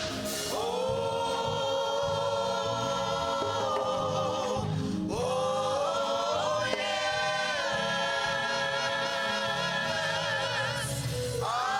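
Gospel choir singing long held notes with vibrato over instrumental accompaniment. Phrases break off briefly about five seconds in and again near the end.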